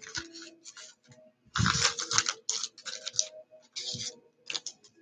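Football trading cards and their pack wrappers being handled: a run of quick, irregular crinkles and card flicks, busiest and loudest about one and a half to two and a half seconds in.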